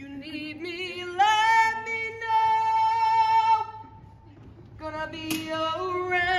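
A woman singing a show tune unaccompanied: a few short phrases, then a long held note, a pause of about a second, and more sung phrases.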